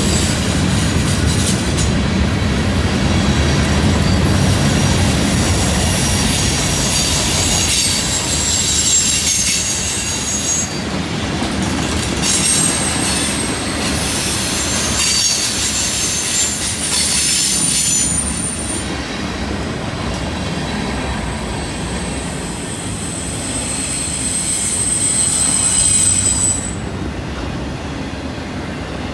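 Freight cars rolling past on a curve: steady wheel and rail rumble with clacking over the rail joints, and high-pitched wheel squeal from the curve that comes and goes, one long squeal stopping about two seconds before the end.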